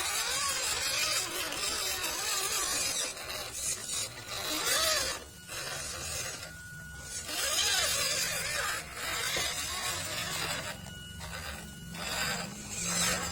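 MN99 D90 scale RC off-road truck driving over rough ground: tyres and chassis scraping and crunching in patches, with its small electric motor whining up and down in pitch as the throttle is worked.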